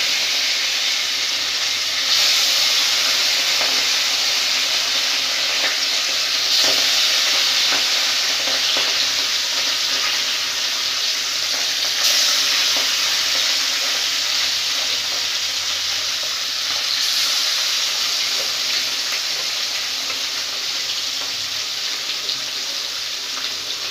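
Fish pieces frying in hot oil in a steel kadhai, a steady sizzle that jumps louder several times as more pieces are slid into the oil.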